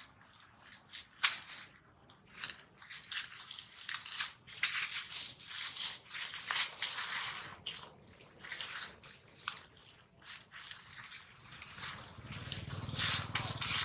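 Dry leaf litter crackling and rustling in quick, irregular bursts as two macaques tussle on it, busiest in the middle and again near the end.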